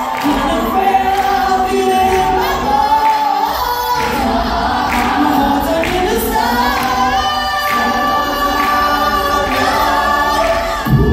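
Vocal group singing unaccompanied, several voices holding and moving between chords. A heavy low entry comes in just before the end.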